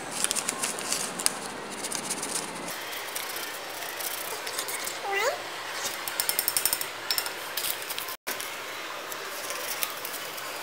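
A cat meows once about halfway through, a short call rising in pitch. A second later comes a fast rattle of light clicks.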